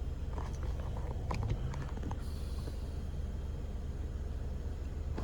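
A steady low hum, with a few light clicks and crinkles from handling a disposable vape's box during the first two seconds.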